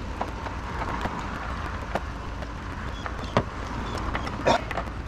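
A few sharp clicks and knocks of hand work on parts, the loudest two about three and a half and four and a half seconds in, over steady background noise with a low hum.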